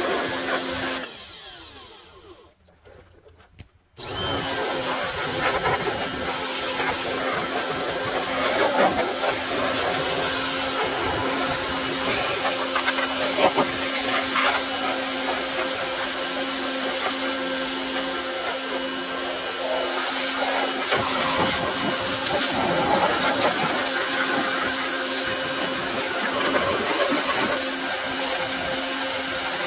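Pressure washer blasting a high-pressure water jet against the underside of a Snapper riding mower's metal deck, a steady hiss over the washer's motor running at a constant pitch. About a second in the sound drops away, then comes back abruptly about four seconds in.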